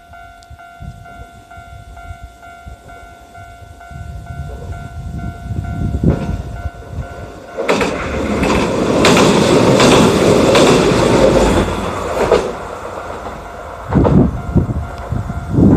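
Level crossing alarm ringing with a steady repeating tone. Then, about halfway in, a Hiroden tram passes close by for about five seconds, its wheels clacking over the rail joints, with a few more joint knocks near the end.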